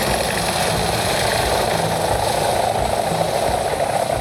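A machine running steadily: a loud, even mechanical hum and buzz that holds without change.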